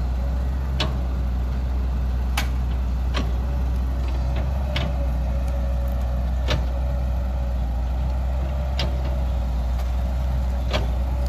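Caterpillar 312 hydraulic excavator's diesel engine running steadily while digging and loading, with a faint steady whine over the low rumble. Sharp knocks come now and then, about seven in all.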